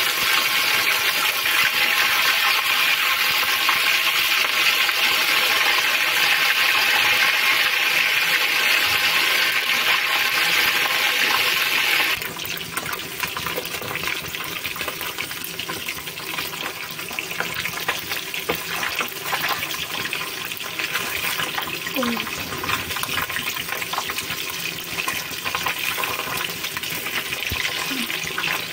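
Fish pieces deep-frying in hot oil in an iron kadhai, a steady loud sizzle. About twelve seconds in it drops abruptly to a quieter sizzle, with scattered clicks as metal tongs turn the fish.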